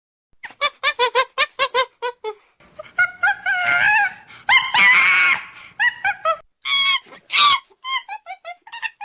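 Bird-like creature sound effect: a quick run of short squeaky chirps, then warbling, squawking cries, and a trail of smaller chirps falling in pitch near the end.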